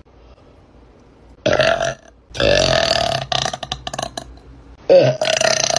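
A woman burping loudly, over and over: a short burp, then a long deep one lasting about two seconds, and another starting near the end.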